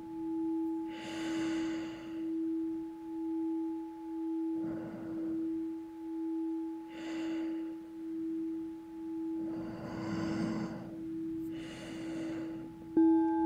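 A singing bowl rings in one steady tone that swells and fades about once a second, while five loud breaths through the nose come and go over it. Near the end the bowl is struck again and rings louder.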